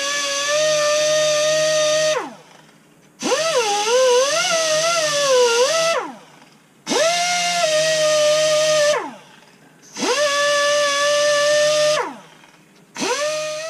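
Pneumatic die grinder with a sandpaper roll, run in five short bursts of two to three seconds while chamfering and deburring the oil galley openings of a Gen 3 Hemi engine block. A high whine over a hiss of exhaust air, its pitch dipping and wavering as the roll bites into the metal during the second burst, and winding down each time the trigger is let go.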